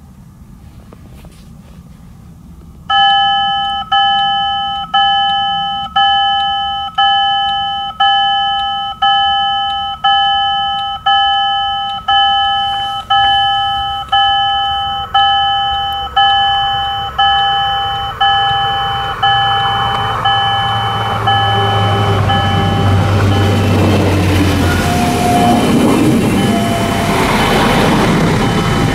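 Level-crossing warning bell starting about three seconds in, ringing about once a second with a bright, decaying ding. From about twenty seconds a passenger train approaches and passes the crossing, its running noise growing loud enough near the end to partly cover the bell.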